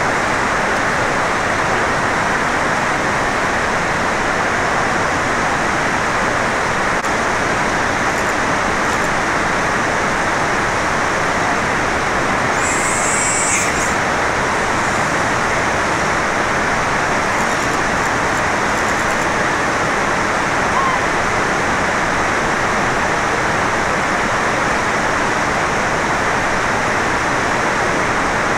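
Steady rushing water, an even, unbroken noise at a constant level.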